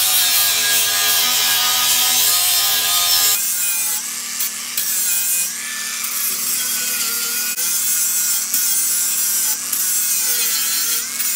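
Handheld power grinder running continuously against steel, its pitch wavering as it is pressed into the metal. It is cleaning the metal back to bare steel for welding.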